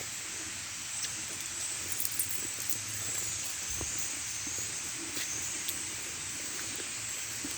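A big flock of birds calling all at once, blending into a steady, high, hissing chatter with scattered sharp chips.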